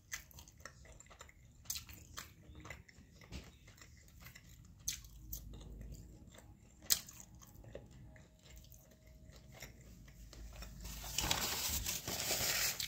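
A person chewing a bite of boneless buffalo chicken, with scattered small mouth clicks. About eleven seconds in, a loud rustling noise takes over as an arm brushes close past the microphone.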